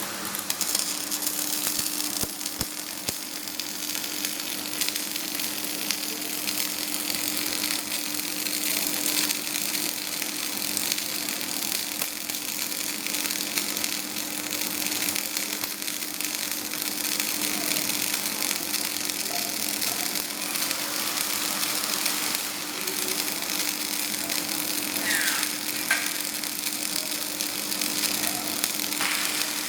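Flux-cored arc welding on carbon steel: a continuous crackling arc, with a faint steady hum beneath it.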